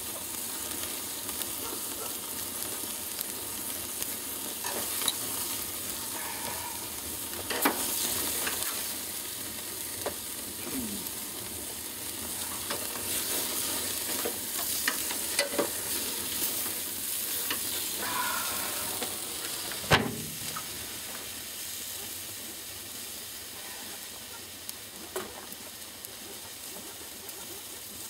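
Grease fire flaring on a gas grill: burning rib fat gives a steady sizzling, crackling hiss. A few sharp knocks come through it, the loudest about 20 seconds in.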